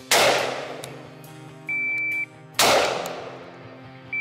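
Two single shots from a Mitchell Defense SOIDC DOC AR-15 with a carbon-fibre barrel in .223 Wylde, each cracking sharply and ringing out over about a second. A steady high shot-timer beep comes between them, about half a second before the second shot, and another beep starts right at the end. Background music plays underneath.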